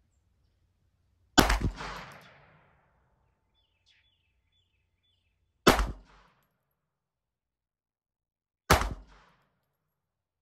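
Three shots from a Ruger Mark IV Hunter .22 Long Rifle semi-auto pistol firing high-velocity Aguila Interceptor rounds. The shots come about three to four seconds apart, and each one has a short ringing tail.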